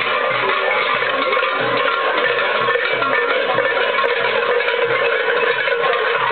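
Dense jingling of many small metal bells, worn by the coyoleras dancers, over a steady low beat repeating a little over twice a second.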